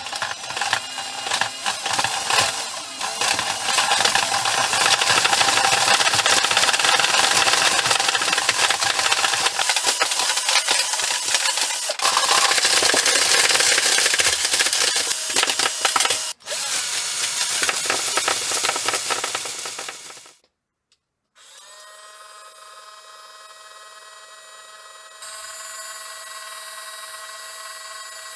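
Battery crawling octopus toy overdriven at high voltage: its small motor and plastic gearbox run flat out with a loud rattling whir as the tentacles clatter, then it cuts off suddenly about 20 seconds in. After a second of quiet, a quieter steady electronic tone of several held notes sounds, growing louder a few seconds later.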